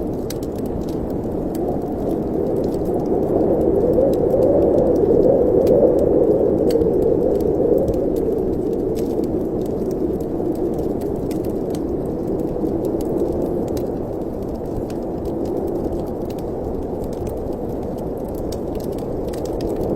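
Wind blowing through a fireplace chimney: a steady low rushing that swells a few seconds in and then eases back, with faint scattered ticks over it.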